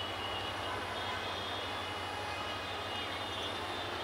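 Diesel-electric locomotive engine running steadily as the train rolls slowly in, a low drone with a steady high whine over it.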